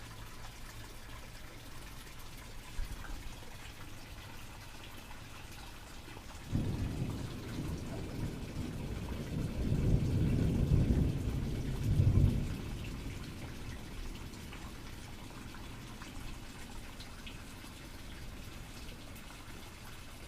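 A deep rumble comes in suddenly about six and a half seconds in, swells to its loudest between about ten and twelve seconds, and dies away soon after, over a faint steady hiss.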